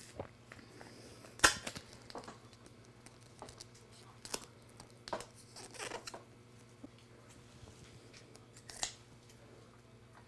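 Duct tape pulled off the roll and torn in several short, separate rips, the loudest about a second and a half in, with crinkling as the tape is handled and pressed down.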